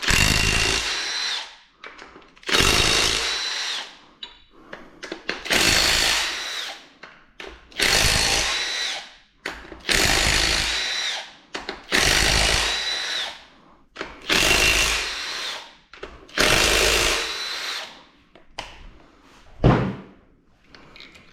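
Handheld power tool with a 7/16 socket run in eight short bursts, about every two seconds, each with a whine that fades as it stops, spinning out the connecting-rod cap bolts on a GM EcoTec engine. A single sharp click comes near the end.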